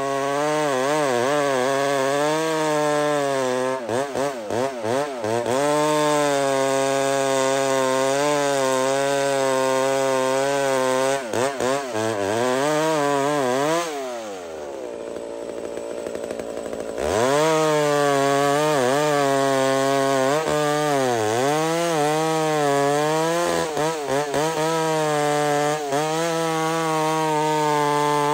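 McCulloch 125 Super Pro two-stroke chainsaw at full throttle, cutting deep into a large knotty stump; its engine speed wavers as the chain bogs and recovers in the wood. About halfway through, the engine drops off for a few seconds, then revs straight back up and keeps cutting.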